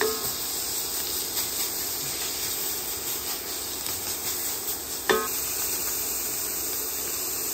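Chorizo sizzling in a hot cast-iron skillet as a spatula scrapes and breaks it up against the pan, with a short ringing scrape at the start and again about five seconds in.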